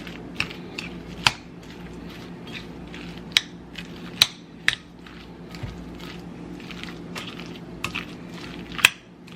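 Shredded iceberg lettuce being stirred in a bowl of vinegar and dressing: wet crunching and squishing, with sharp clicks of the spoon against the bowl here and there, the loudest near the end. A steady low hum runs underneath.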